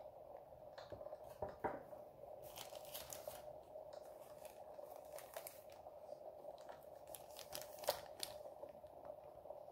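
Plastic bags holding model-kit sprues crinkling and rustling as gloved hands handle them, with irregular crackles and a few sharper clicks, over a faint steady hum.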